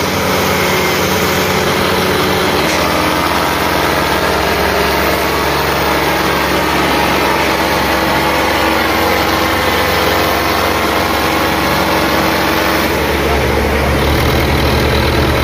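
Diesel farm tractor engines running loud and steady under load in a tractor tug-of-war pull. The low engine note grows stronger about thirteen seconds in.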